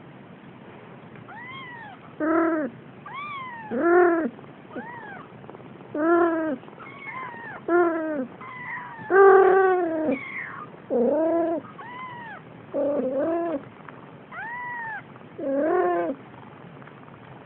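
Siamese kittens meowing over and over: more than a dozen short calls, each rising and falling in pitch, some high and thin, others lower and fuller.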